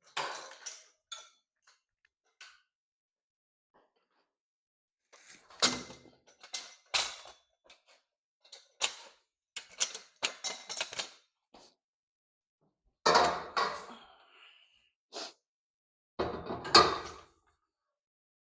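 Scattered knocks, clanks and clatters of tools and metal being handled in a workshop, in short groups with silent gaps between them. The densest clattering comes about six, thirteen and sixteen seconds in.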